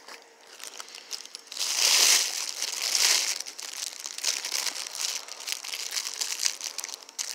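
Rustling, crinkling noise close to the microphone, starting about a second and a half in with two loud hissy surges a second apart, then going on more softly.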